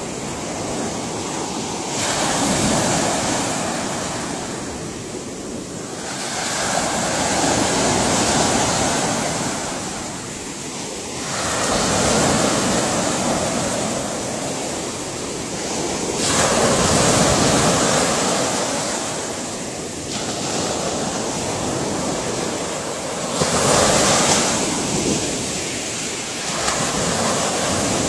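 Ocean waves surging and washing on the shore. The surf swells and eases in a slow cycle, a new surge every four to six seconds.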